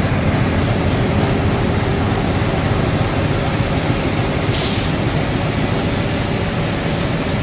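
Inline corrugated-carton flexo printer slotter die-cutter running in production: a steady, loud mechanical din with a faint steady hum in it, and one brief hiss about four and a half seconds in.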